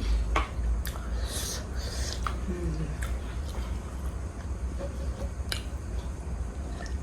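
Close-up chewing and mouth sounds of someone eating juicy pork momo: scattered small clicks, wet smacks and slurps over a low steady hum.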